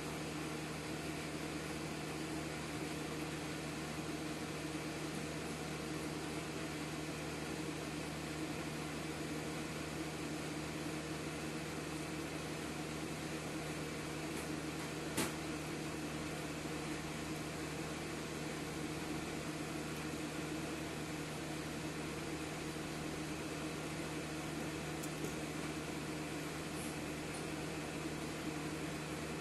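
Air purifier fan running with a steady hum and hiss and a constant low tone. A single sharp click about halfway through.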